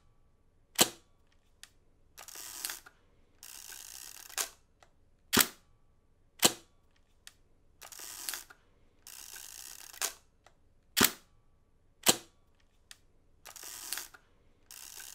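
Camera shutter clicks, sharp and in pairs about a second apart, recurring about every five and a half seconds, with stretches of rasping, ratchet-like film winding between them.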